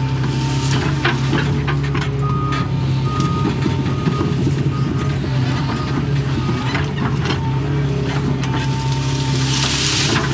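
Doosan excavator's diesel engine running steadily at working revs, with a warning alarm beeping repeatedly for a few seconds. A few sharp cracks of branches and wood breaking, and a burst of hiss near the end.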